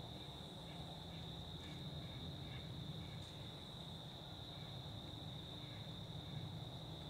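Steady high-pitched trilling of crickets in a faint woodland background, with a low hum underneath.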